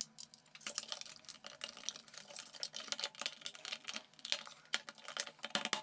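Screwdriver prying at the plastic housing of a BMW E90 ashtray and lighter socket, a run of small irregular plastic clicks and scrapes.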